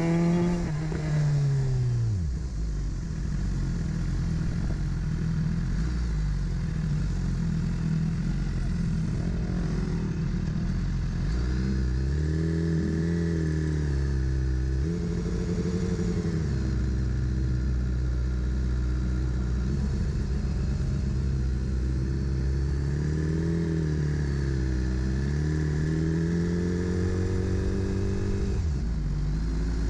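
BMW S1000RR inline-four engine heard from on board. Revs fall steeply from high to low in the first two seconds, then it runs at low revs at riding speed, rising and falling smoothly a few times with the throttle.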